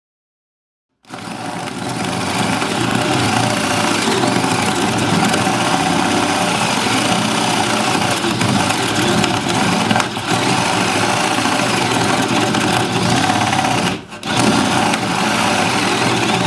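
Bosch DDS181 18-volt cordless drill running under load, a 1.5-inch spade bit boring through a 2x8: a loud, steady motor whine mixed with the bit chewing wood. It starts abruptly about a second in and drops out briefly near the end before carrying on.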